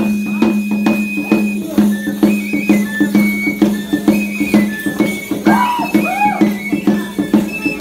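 Traditional Tecuanes dance music: a high pipe plays short held notes over a regular beat of drum strokes, with a constant low hum beneath.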